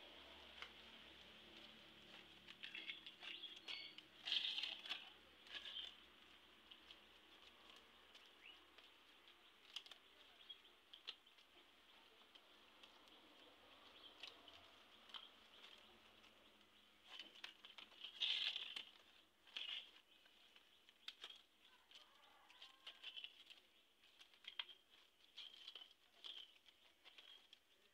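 Coconut frond leaflets rustling and crinkling as they are folded and tucked by hand into a woven mat, in short scattered bursts, loudest about four and eighteen seconds in.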